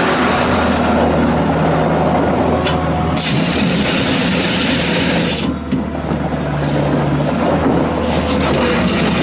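The 52 hp diesel engine of a 2001 New Holland LS170 skid steer loader running while the machine is worked. The level dips briefly a little past halfway, and the engine note shifts slightly.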